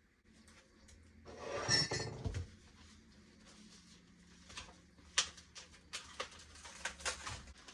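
Kitchen items being handled on a counter: a louder rustling scrape about two seconds in, then a handful of light clinks and knocks, over a faint steady low hum.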